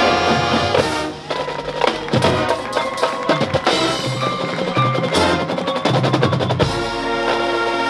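High school marching band playing its field show, in a percussion-led passage: fast drumline strokes over held band tones. Near the end the band comes in together on a sustained chord.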